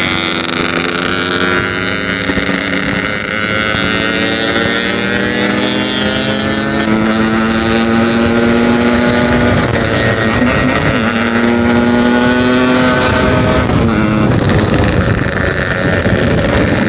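Yamaha RX-King 135cc single-cylinder two-stroke running under way through a 'packing power' aftermarket exhaust, its note slowly climbing in pitch as the bike accelerates. The pitch dips briefly about ten seconds in and falls away near fourteen seconds, as on a gear change or easing off the throttle. Wind buffets the microphone.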